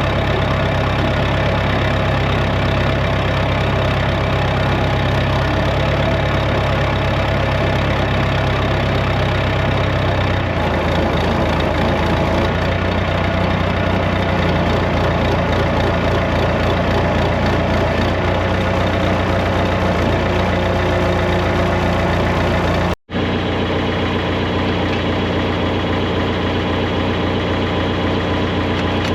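Engine idling steadily, its low note shifting about ten seconds in. The sound cuts out for an instant near the end, then the engine carries on.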